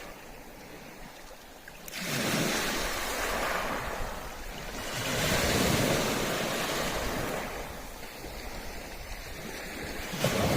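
Sea waves breaking and washing up a beach. The surf swells loud about two seconds in and again around five seconds, then eases off before rising again at the end.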